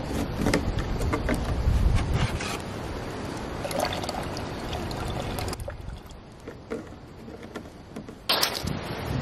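Water trickling from the spigot of a plastic water jug into a silicone collapsible bowl, with wind rumbling on the microphone; the pouring stops about halfway through, and a few knocks follow near the end.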